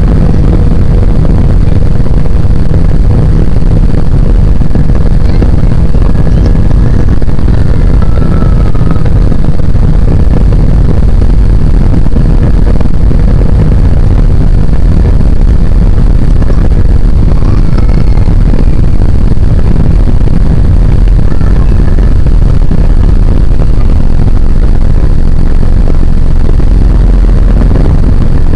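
Jet airliner's wing-mounted turbofan engines at takeoff power, with the wheels rumbling along the runway, heard from inside the cabin: a loud, steady noise, heaviest in the low rumble.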